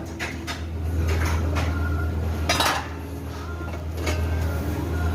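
Metal clinks and knocks, with a louder clatter about halfway through, over a steady low electrical hum from the machinery in an automatic MIG welding shop.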